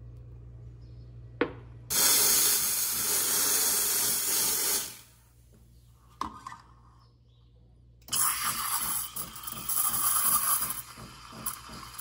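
Steam wand of a Saeco SE50 espresso machine hissing loudly for about three seconds, then stopping. After a pause and a click, the steam opens again into milk in a stainless steel pitcher: a loud, crackling hiss that turns quieter and uneven for the last second or so.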